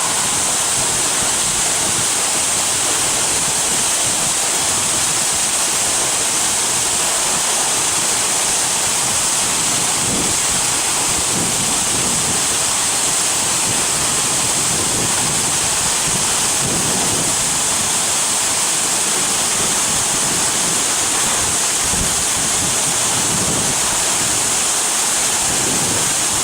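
Waterfall heard from close by: a loud, steady rush of falling water and spray.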